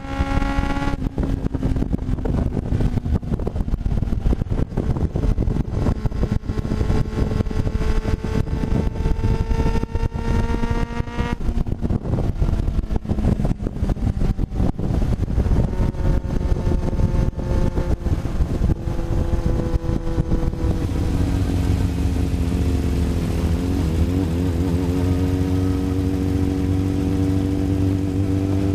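1993 Yamaha YZF750SP inline-four running through a full Black Widow exhaust with the EXUP valve deleted. The engine note climbs slowly under load, breaks off sharply about a second in and again around eleven seconds in, and climbs again each time. In the last third the note steadies, dips briefly and rises once more.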